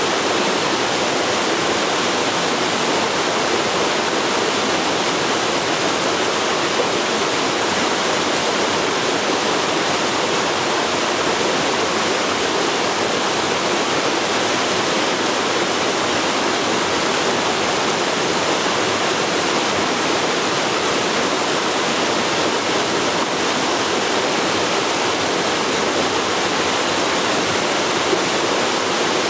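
Forest river flowing, a steady, even rush of moving water with no pauses or changes.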